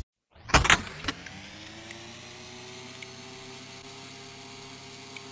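A machine hum spinning up to speed, with two sharp clicks in the first second, then settling into a steady low hum; another loud click at the very end.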